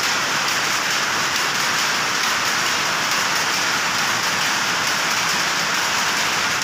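Powerlooms running: a dense, steady mechanical clatter so fast and even that it blurs into a continuous rain-like noise.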